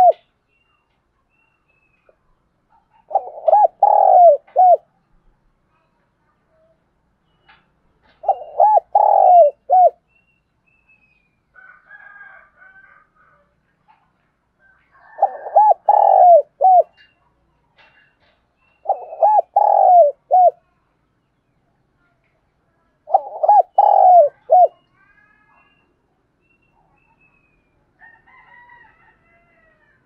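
Spotted dove cooing: five phrases of several short coo notes each, one every four to five seconds, with silence between.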